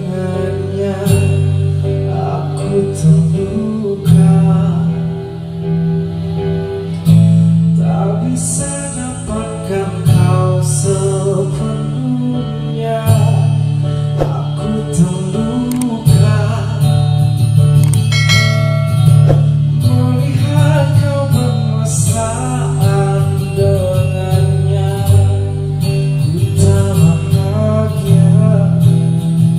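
A man singing an Indonesian pop ballad into a microphone over a backing music track with guitar and bass, played back through a small audio mixer.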